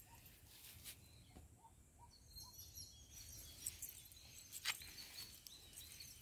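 Near silence: faint open-air field ambience with a few faint, short high chirps, and two soft clicks, about a second in and near the five-second mark.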